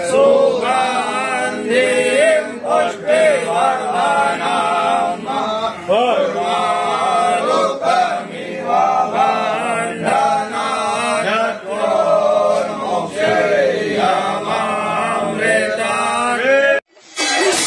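Several male voices chanting a Hindu devotional chant in unison, the pitch moving in sung phrases. Near the end it breaks off abruptly, and music with percussion starts.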